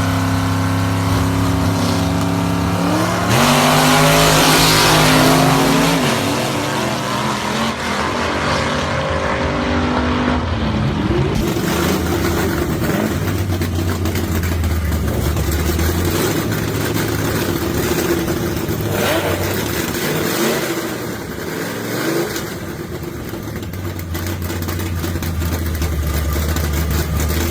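Gasser hot rod's engine revving up hard about three seconds in, then running steadily with a few smaller revs.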